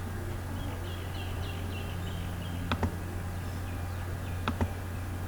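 Two quick double clicks of a computer mouse, about two seconds apart, as the Arduino installer is being clicked through. Under them run a steady low hum and, in the first half, faint high chirping.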